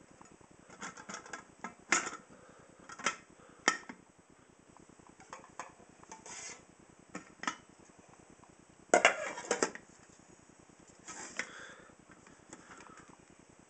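Aluminium camping pots, lid and pan knocked together as the cook set is stacked and its handles folded, giving scattered light metal clinks and short clatters, the loudest clatter about nine seconds in.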